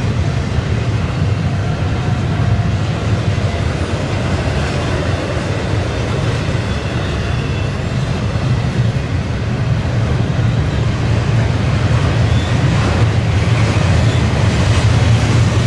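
Double-stack intermodal well cars loaded with containers rolling past on the rails: a steady heavy rumble with wheel and rail noise, growing slightly louder near the end.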